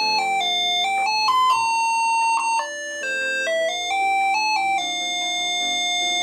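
A simple electronic melody of clear, single notes stepping up and down, with no words over it.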